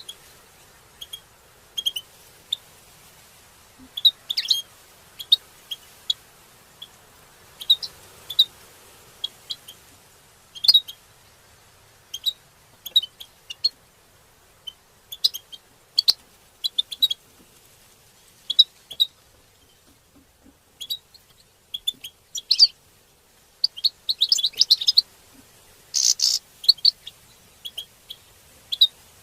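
European goldfinches calling: short, sharp chirps in scattered ones and twos, thickening into a quick flurry near the end. These are the clipped calls that goldfinch keepers call 'batbata', played to stimulate caged goldfinches to sing.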